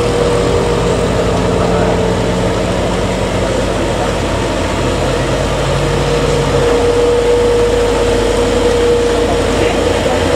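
Mitsubishi Fuso Canter light truck's diesel engine running steadily under load as it climbs a hairpin bend, with a steady hiss over it.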